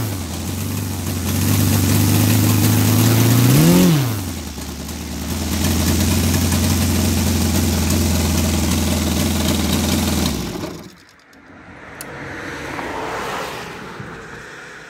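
Saito FG-60R3 three-cylinder four-stroke radial model-aircraft petrol engine idling with its propeller turning, revved once briefly about four seconds in. It is shut off about ten and a half seconds in, and the sound dies away.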